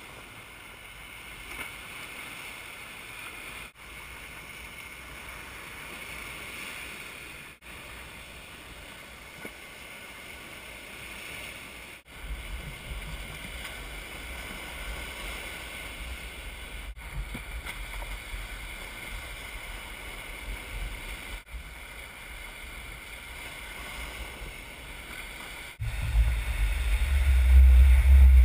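Small waves breaking on a lake beach, a steady wash of surf with wind buffeting the microphone. The sound drops out for an instant at several cuts. The wind rumble grows heavier about halfway through and much louder near the end.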